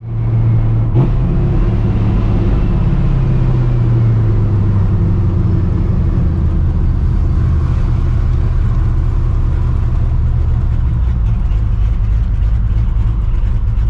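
Straight-piped, Procharger-supercharged 5.4-litre V8 in a 1999 Mustang GT running with a steady, deep exhaust drone. There is one click about a second in.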